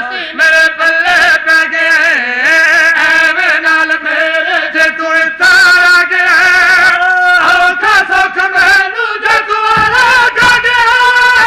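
A man's voice singing a Punjabi devotional verse into microphones, unaccompanied, in long held notes with wavering ornaments, as in a Shia zakir's sung recitation.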